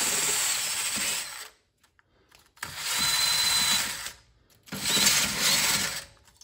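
Cordless drill spinning a wire wheel against a car's wheel hub face, scrubbing off rust so the new brake rotor will sit flat. It runs in three scratchy bursts with short pauses between, a faint motor whine over the brushing.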